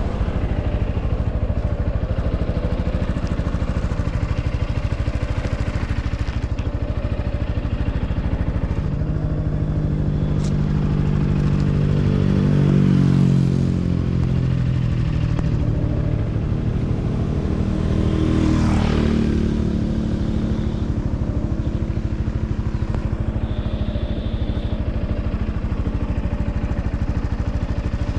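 Yamaha Xmax scooter's single-cylinder engine running on the road, its pitch rising as it speeds up about ten seconds in and dropping back a few seconds later, with a second, smaller rise later on.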